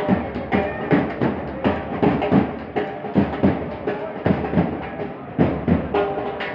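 Live band music: drums beating a steady rhythm of about two strokes a second under held instrument notes.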